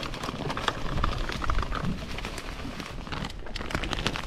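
Dry, grain-laden groundbait poured from its plastic bag into a plastic bait bucket: a steady hiss of falling powder peppered with many small ticks of grains landing.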